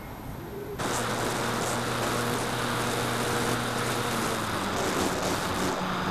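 Wind rushing over an onboard camera on a foam RC glider in flight, under the steady hum of its nose-mounted DT750 brushless outrunner motor on a 3S battery. It starts abruptly just under a second in, and the motor note changes about four seconds in.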